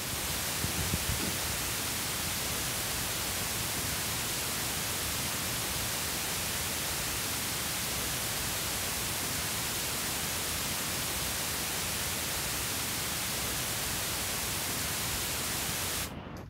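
Pink noise test signal, a steady even hiss, played as the measurement signal for a speaker frequency-response analysis. It cuts off suddenly near the end.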